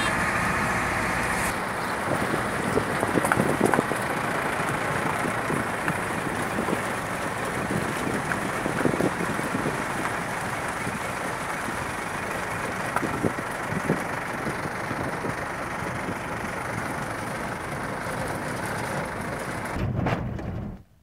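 Road and engine noise inside a moving car's cabin, a steady rumble with occasional knocks and rattles from bumps. It cuts off suddenly near the end.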